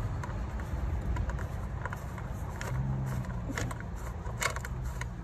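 Irregular metallic clicks of a 10 mm socket wrench loosening the ignition coil bar bolts on a 2.2-litre Ecotec four-cylinder. They bunch together about three seconds in and again near the end, over a low steady rumble.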